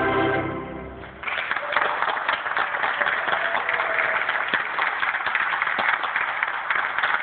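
The Castro Theatre's organ releases its final held chord, which dies away in the hall within about a second. Then the audience breaks into loud, sustained applause.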